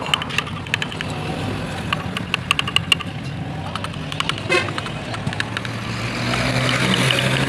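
Hand chisel cutting into a wooden relief carving, giving short crisp clicks. Under it is steady road traffic, with vehicle engines running, a horn toot, and a vehicle getting louder near the end.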